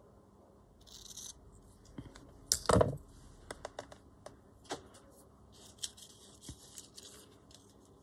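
Small craft scissors snipping paper and thread, with paper being handled and torn in short rustling stretches. One louder knock comes about two and a half seconds in.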